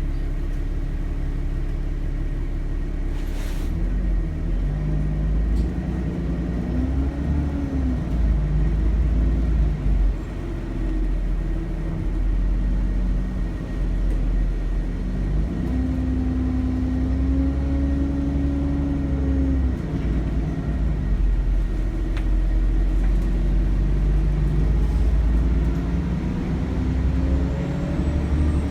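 Cummins ISBe diesel engine of an Alexander Dennis Enviro400 double-decker bus, heard from on board as it pulls hard. The engine note rises and drops several times as the ZF Ecolife automatic gearbox shifts, with a thin steady turbo whistle over the rumble.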